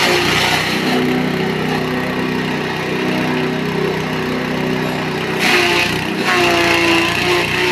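SM 65 multifunction grass chopper and grinder running steadily under its engine. It gets louder for about a second, about five and a half seconds in.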